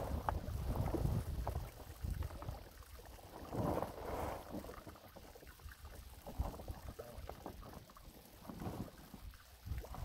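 Wind buffeting the microphone while a large black plastic liner sheet rustles and crinkles as it shifts, with a louder gust about four seconds in.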